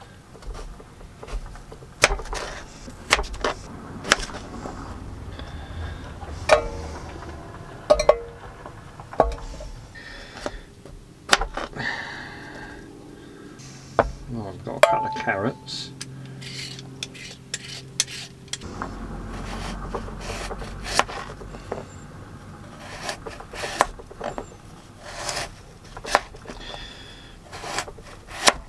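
Vegetable preparation: a hand peeler scraping potatoes, then a kitchen knife knocking on a plastic chopping board as carrots are sliced near the end, with scattered sharp clicks and knocks of utensils and a pan.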